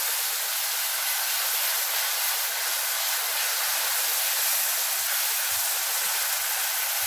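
Wet ground onion paste frying in hot oil in a kadai, just tipped in: a loud, steady sizzle with steam, as a metal spatula stirs it.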